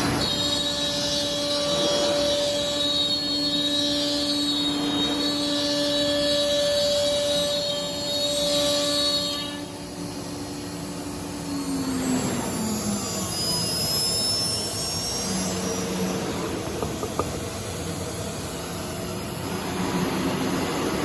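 CNC router spindle running with a steady whine over machine noise. About halfway through, its pitch falls away as the spindle slows down, while the noise of the machine carries on.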